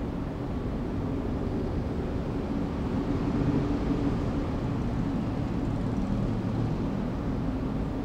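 City ambience: a steady low rumble of traffic, with no single vehicle standing out.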